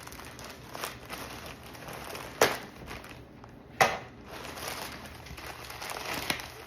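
Mailing package being torn open and handled: continuous crinkling and rustling of the wrapping. Two sharp, louder rips or cracks come about a second and a half apart.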